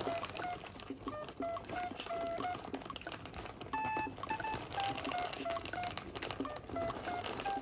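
Background music: a simple electronic melody of short, clean beeping notes that step down in pitch, the phrase starting over about every five seconds. Many sharp little clicks sound throughout alongside it.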